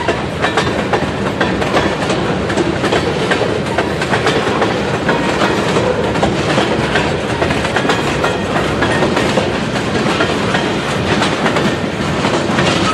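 Mixed freight train of covered hoppers, boxcars and tank cars rolling past: a steady loud rumble of cars on the track, with the wheels clicking over rail joints throughout.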